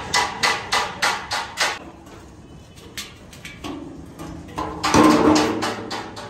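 A quick, even run of about eight sharp knocks, roughly four a second, in the first two seconds. Then a louder stretch with steady ringing tones about five seconds in.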